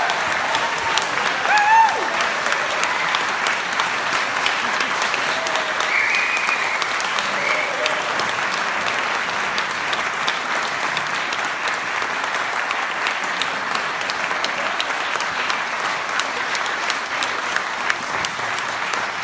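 Audience applauding steadily, with a few cheering voices in the first couple of seconds.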